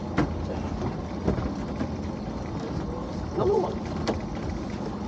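Small fishing boat's engine idling under wind noise on the microphone, with a few sharp knocks.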